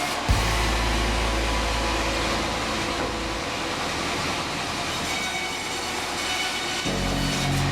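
Large sawmill bandsaw machinery running steadily with a rumbling noise. There is a knock just after the start, and a deeper drone comes in near the end.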